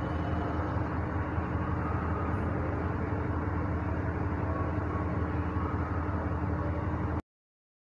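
A steady low rumble with a faint steady hum over it. It cuts off abruptly into silence about seven seconds in.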